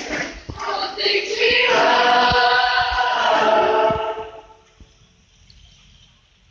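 Mixed choir singing, ending on a held chord that is cut off about four seconds in.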